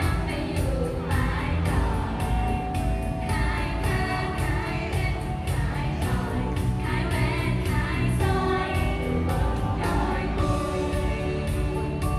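Girls' voices singing a pop song together into handheld microphones over amplified pop music with a steady beat.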